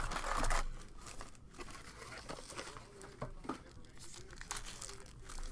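Trading card pack wrappers crinkling and tearing as they are handled and opened. A loud rustle in the first half second is followed by scattered short crackles.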